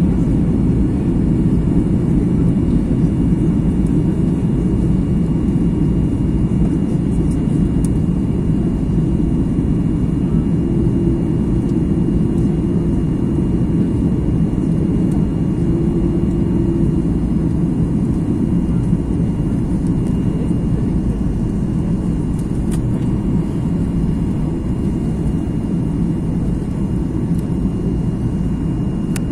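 Steady drone of jet engines and rushing air inside an airliner's passenger cabin on approach, deep and even, with a faint steady high whine above it.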